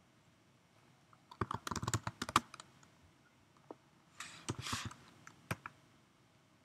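Computer keyboard keystrokes as a short terminal command is typed: a quick run of key clicks about one and a half seconds in, another group around four and a half seconds, and a single key press a second later.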